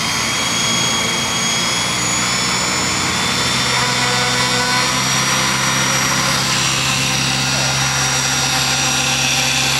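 Align T-Rex 600 electric RC helicopter running at speed, a steady high whine from its electric motor and drivetrain over the whoosh of the spinning main and tail rotors. It lifts off the ground into a low hover near the end.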